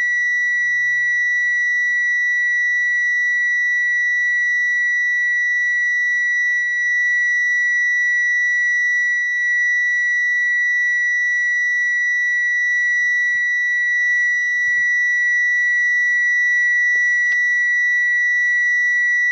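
Car parking sensor sounding one continuous, unbroken high-pitched tone, the signal that an obstacle is at the closest range and the car should stop.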